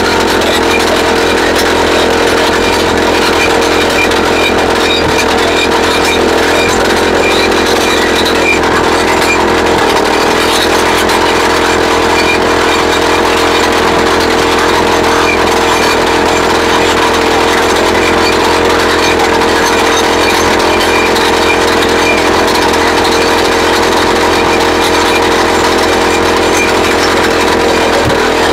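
YN30A two-stroke petrol rock drill running steadily under load while boring into rock. Its engine dips briefly about ten seconds in.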